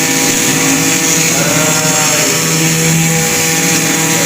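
Mini CNC milling machine running steadily: an even motor whine with several held tones over a hiss.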